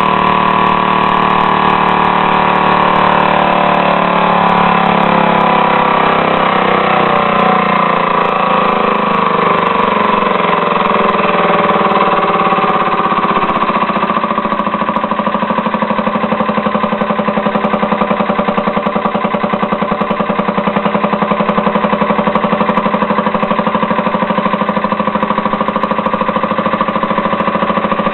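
Leaf blower engine converted to run on compressed air through a timed air valve, running continuously with a fast, even exhaust beat. Its speed shifts during the first half, then holds steady.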